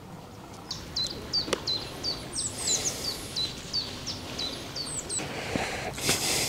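A small bird calling: a quick run of short, high chirps, each falling in pitch, about three a second. A louder hiss comes in near the end.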